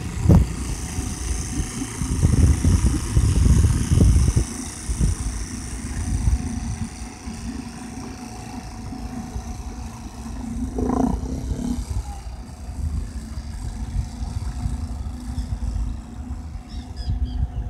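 Small outboard motor running on a catamaran boat as it moves away, its sound fading, under heavy wind rumbling on the microphone in irregular gusts.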